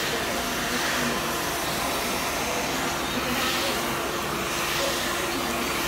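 Handheld hair dryer blowing steadily during a round-brush blow-dry: an even rush of air with a faint low hum.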